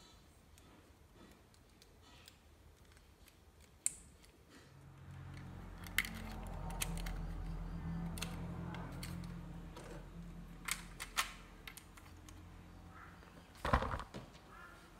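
Lego Technic plastic parts clicking and knocking as they are handled and fitted together, with a louder clatter near the end. A low hum comes up in the background midway and fades out.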